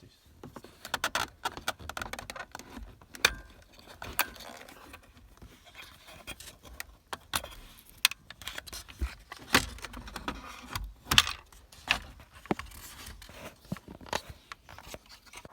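Hand work on a BMW E46's dashboard: irregular clicks, knocks and clinks of metal fasteners and plastic trim being worked loose, with scraping between them.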